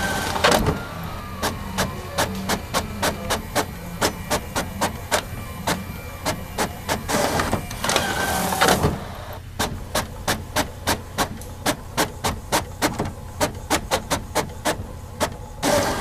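Printer mechanism working: a steady low hum under sharp, evenly spaced clicks about three a second, with a louder rushing passage near the start, about halfway through, and again at the end.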